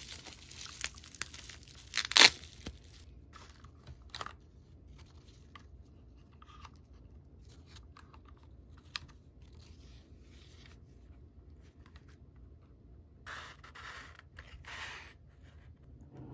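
Clear plastic wrapping crinkling and rustling in irregular handfuls as a doll is unwrapped. There is a sharp, loud crackle about two seconds in and another spell of rustling near the end.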